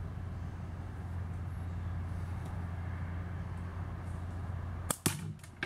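A slingshot shot: a sharp snap as the shot is released, followed about a fifth of a second later by a sharp crack as the ammo strikes the wooden nickel target, over a steady low background hum.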